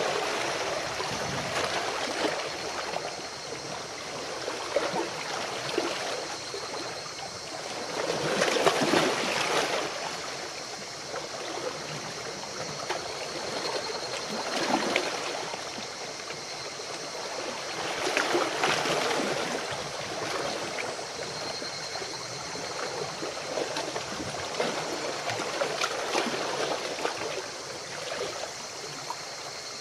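Water washing and splashing, steady, with a louder surge about every eight to nine seconds.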